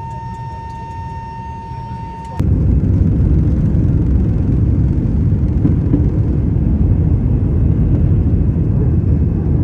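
Airliner cabin noise: a loud, steady, low rumble of jet engines that starts abruptly about two seconds in. Before it there is a steady high tone over a quieter rumble.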